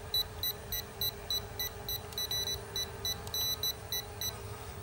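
Drone remote controller beeping rapidly and repeatedly, about three to four high-pitched beeps a second, while its photo button is held down to hold the drone steady. The beeping stops about four seconds in, leaving a steady low hum underneath.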